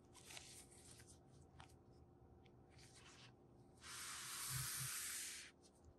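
Gloved hands handling a cardboard phone box: a few faint brushes and rustles, then a louder rub or slide of about a second and a half, starting about four seconds in, with two soft thumps in it.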